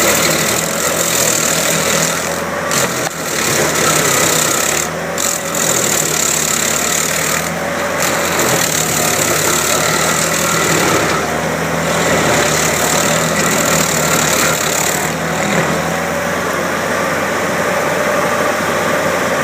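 A motor or engine running steadily with a constant hum and hiss, with no clear change in speed.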